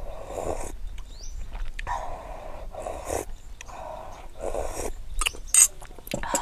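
A person slurping soup off a spoon, about five short slurps in a row, then a few sharp clicks and taps near the end.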